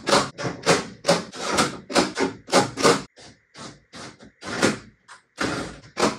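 A run of irregular knocks and rattles on a van's bare sheet-metal body, about two to three a second with short gaps, from work on the sliding-door track mounting bracket.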